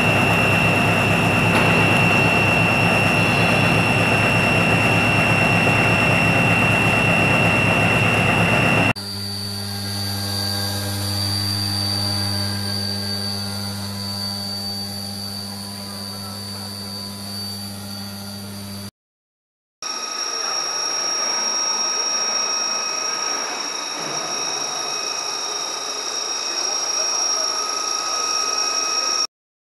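CNC drilling machine spindles cutting steel in three clips. First, a spindle drilling a round steel flange under coolant spray: dense cutting noise over a steady high tone. About nine seconds in, a quieter run with a strong low steady hum. After a brief gap, a spindle drilling a large steel gear ring: steady machine noise with high steady tones.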